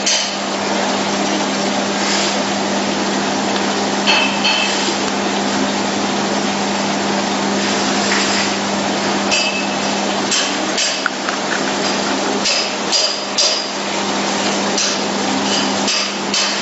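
Continuous band sealer with a date coder running: a steady motor hum and whir, with irregular sharp metallic clicks and taps, clustered about two thirds of the way through.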